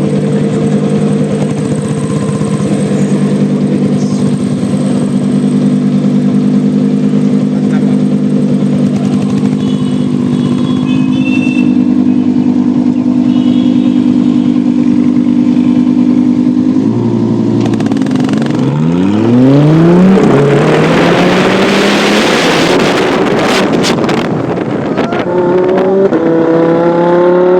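Lamborghini Huracán Evo Spyder's naturally aspirated V10 idling steadily, then revving up hard about 19 seconds in, its pitch climbing steeply. A loud stretch of exhaust noise follows, with a few sharp exhaust crackles around 23 seconds, and the engine climbs in pitch again in steps near the end.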